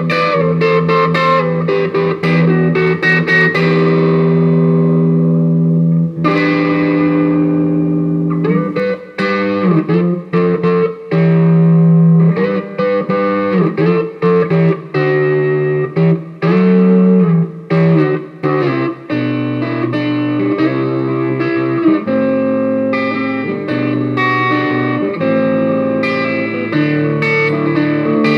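Gibson Les Paul Custom electric guitar played through a Bugera V5 tube amp on a crunch setting. It opens with held, ringing chords, then about eight seconds in breaks into a choppy blues run with bent notes, before going back to longer held notes.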